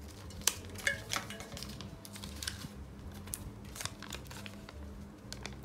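Folded paper slips crinkling and rustling as one is picked out of a plastic mesh cup and unfolded, with scattered sharp crackles of paper.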